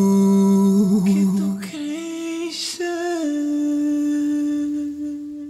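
Closing notes of a song: long held, wavering vocal notes that change pitch about two seconds in, then a final held note that fades out near the end.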